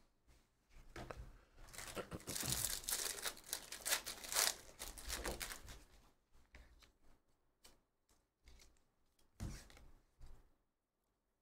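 A silver foil jumbo pack of trading cards torn open, a crinkly tearing and crackling for about four seconds, then the quieter rustle and flick of cards being handled and slid apart, with one soft knock near the end.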